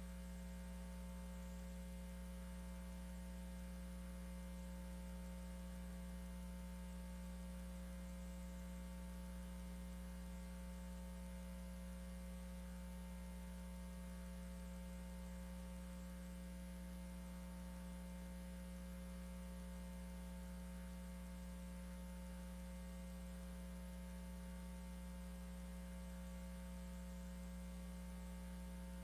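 Steady electrical mains hum, a low buzz with a few fixed higher tones, unchanging and with nothing else heard over it.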